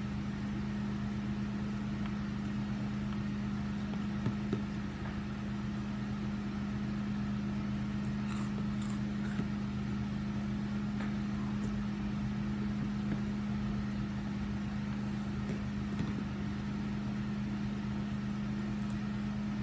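A steady low hum, with a few faint clinks of a metal spoon in a plastic cereal bowl scattered through the second half.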